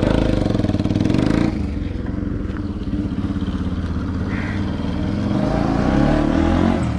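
Motorcycle engine running close by. It is loudest for the first second and a half, then settles to a steady idle and rises briefly again near the end.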